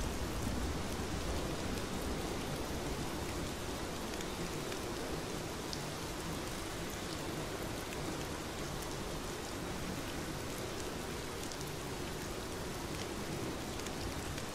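Steady rain falling: an even hiss with scattered sharp drop ticks.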